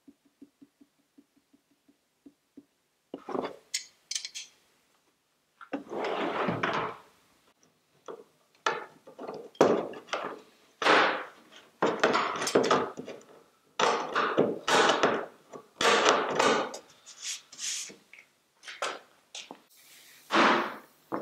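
Steel pliers handled on a plywood workbench: a string of irregular knocks, clanks and scrapes as they are picked up, worked and set down on the wood. In the first two seconds there is a run of light, rapid ticks.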